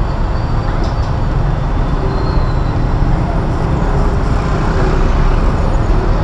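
Street ambience: steady road-traffic noise with a heavy low rumble throughout.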